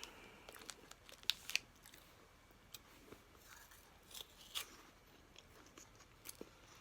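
Faint crinkling and handling of a snack wrapper, with scattered sharp clicks and crunches, a few louder ones about a second and a half in and again past halfway.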